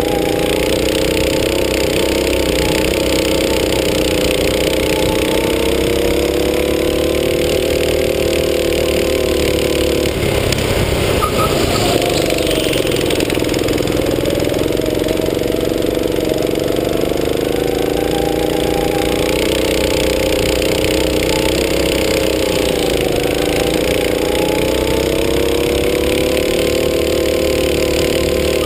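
Go-kart's small petrol engine running hard, its pitch rising and falling with the throttle through the corners. The note breaks up into a rougher noise for a moment about ten seconds in, then climbs back.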